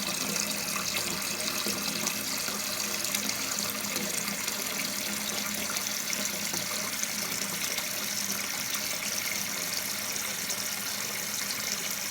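Newly installed toilet tank fill valve running steadily: water hissing through the valve and filling the tank.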